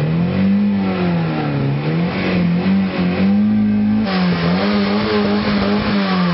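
Engine of a SEAT sedan revved over and over by pumping the gas pedal, its pitch rising and falling about once a second in short blips that never climb far.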